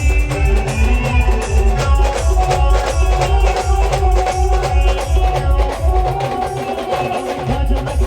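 A live band playing a fast, steady drum beat with a heavy bass drum under a sustained melody line. The bass drum drops out briefly about six and a half seconds in, then comes back.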